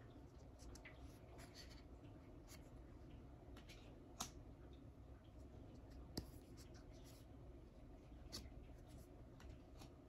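Near silence with faint rustles and light clicks of oracle cards being slid off the front of a deck and held up one at a time; two slightly sharper clicks come about four and six seconds in.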